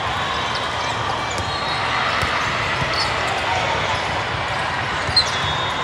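Steady din of a large hall with many indoor volleyball games under way: many voices at once, with volleyballs being struck and bouncing. One sharp, brief sound stands out about five seconds in.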